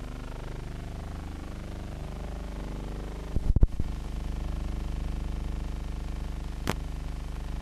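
Steady hum and hiss of an old optical film soundtrack carrying no programme sound, broken by a short burst of loud pops and crackles about halfway through and a single sharp click near the end.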